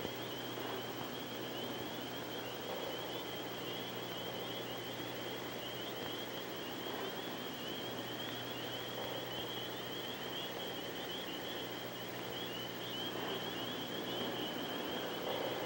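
Steady outdoor ambience: a continuous high, rapidly pulsing trill of insects over soundtrack hiss and a low steady hum.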